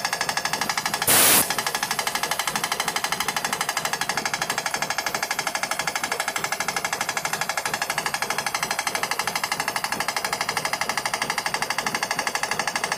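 Electric air compressor running steadily with a rapid even pulsing, building tank pressure as it climbs through about 30 to 50 psi. A brief loud rush of noise about a second in.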